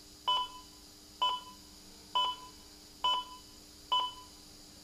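Bedside heart monitor beeping with the patient's pulse: five short, evenly spaced beeps, a little under one a second, over a faint steady hum.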